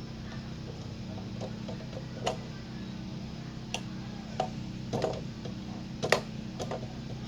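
Scattered light clicks and knocks, about eight at irregular intervals, over a steady low hum.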